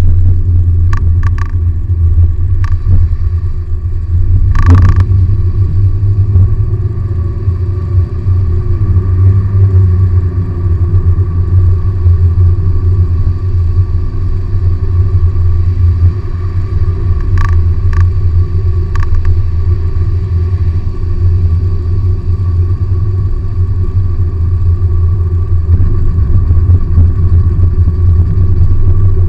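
Inside the cabin of a moving Perodua Bezza on a wet road: the steady low rumble of its 1.3-litre 1NR-VE four-cylinder engine mixed with tyre and road noise, with a few sharp clicks scattered through it, the loudest about five seconds in.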